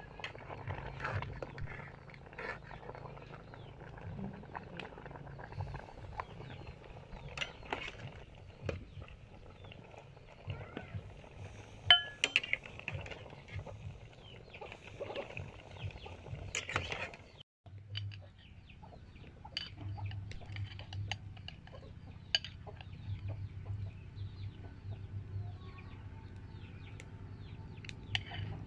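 Chickens clucking, with a metal spoon and ladle clinking and scraping against a ceramic bowl of soup in short, irregular clicks. The sharpest clink comes about twelve seconds in.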